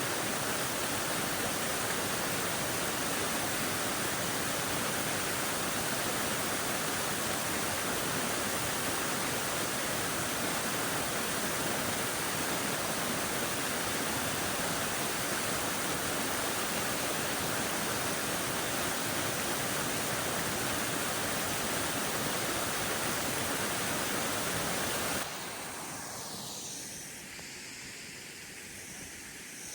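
Waterfall: a steady, even rush of falling water. About 25 seconds in it drops suddenly to a quieter, duller rush.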